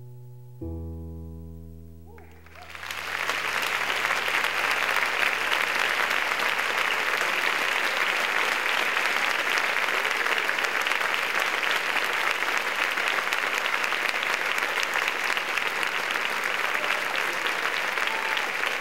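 A last piano chord of the music, struck about half a second in and fading away, then audience applause that swells in about two seconds later and goes on steadily loud.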